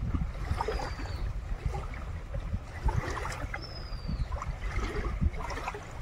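River water lapping and trickling against a rocky bank, under a constant low rumble of wind on the microphone. A thin, high, slightly falling whistle sounds twice, about half a second in and again near four seconds in.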